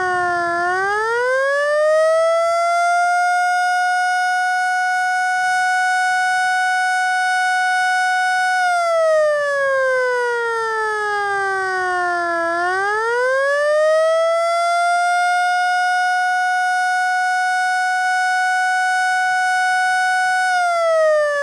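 Federal Signal Model L eight-port civil defense siren sounding a mock attack signal: its tone winds up, holds high for several seconds, then winds down and climbs again, in a cycle of about twelve seconds.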